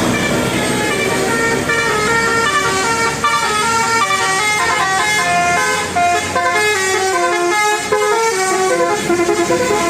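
Telolet basuri horn playing a fast melody, a continuous run of short notes stepping up and down in pitch.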